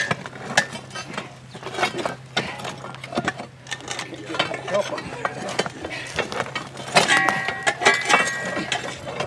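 Steel pry bars clinking and scraping against rock as a heavy stone slab is levered into place, with stones knocking and grinding. Two louder ringing metallic clanks come about seven and eight seconds in.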